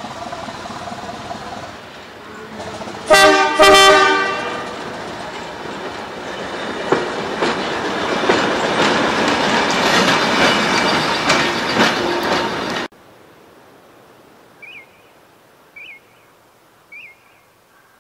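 Diesel locomotive horn sounding two short blasts, then the red diesel shunting locomotive rolling close past with its engine running and wheels clicking over rail joints, growing louder. The sound cuts off abruptly to a quiet background with three short high chirps.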